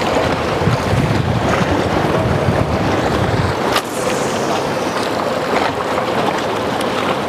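Wind buffeting the microphone over the wash of sea waves against breakwater rocks, with a faint steady hum underneath and a sharp click about four seconds in.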